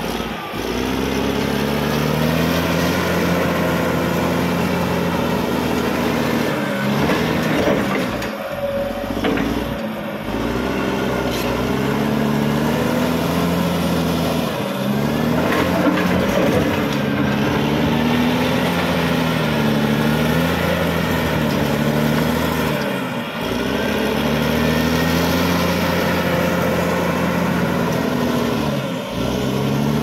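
Caterpillar D6R XL bulldozer's diesel engine working under load while pushing dirt and rock. Its pitch rises and falls over and over as the load changes, with a few brief drops in level.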